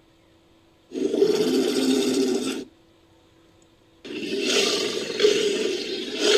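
Rhinoceros roaring: two harsh, rasping roars. The first lasts just under two seconds and the second begins about four seconds in.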